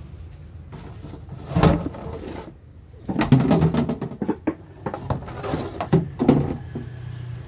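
Irregular knocks and scraping close to the microphone: one loud bump about one and a half seconds in, then a flurry of knocks and rustling from about three seconds, over a low steady hum.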